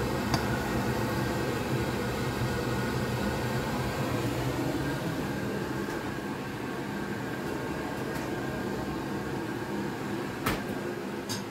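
Steady mechanical hum in the kitchen, with a couple of sharp clinks of a metal spatula against the frying pan near the end.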